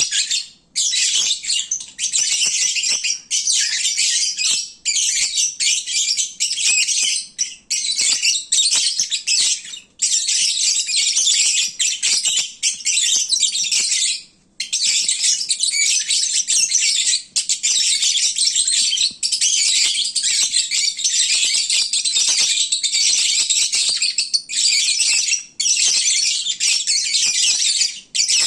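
Lovebird chattering: a dense, loud, high-pitched stream of chirps and squawks, broken only by a few brief pauses. This is the noisy chatter lovebirds make when they are fed and drowsy at midday.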